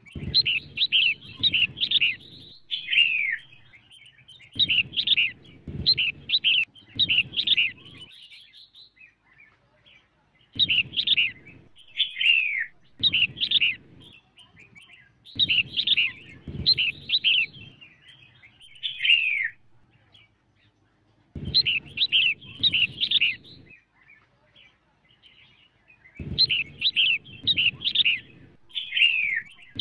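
Female red-whiskered bulbul singing: short bursts of quick, bright chirping notes, each burst ending in a falling slur, repeated about every five seconds.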